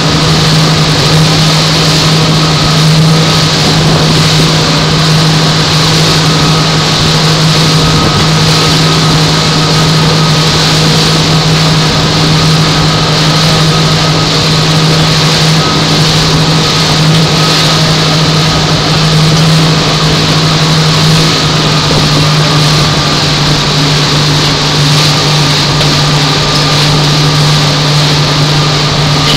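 Motorboat engine running steadily at cruising speed, a constant low drone, mixed with rushing wind and water noise as the boat moves along.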